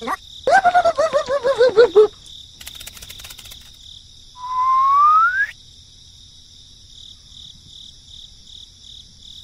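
A steady background of cricket chirping, with a high, squeaky cartoon voice babbling in quick wavering syllables for the first couple of seconds. A short run of clicks follows, then a single rising whistle about four seconds in.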